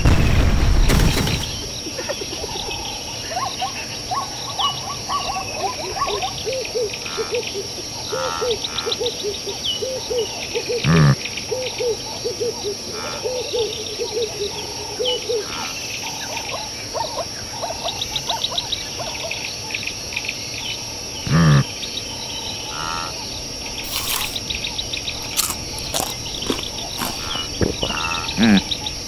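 Savanna wildlife ambience: a steady high insect drone with chirping bird calls and rapid low croaking calls. Three times, a short loud call slides down in pitch.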